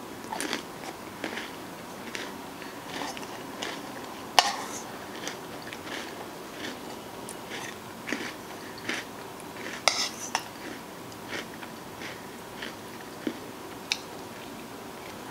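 Close-up eating sounds: a metal spoon scraping and clicking against a plastic bowl of ice cream, with chewing and mouth sounds, as a string of short, sharp clicks. The sharpest come about four seconds in and around ten seconds in.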